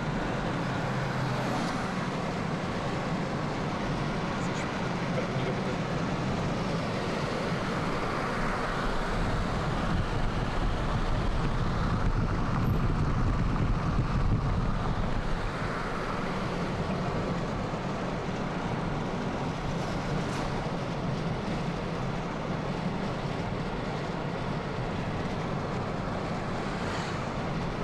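Steady road noise inside a moving car: tyres on asphalt and the engine running, rising a little for a few seconds midway.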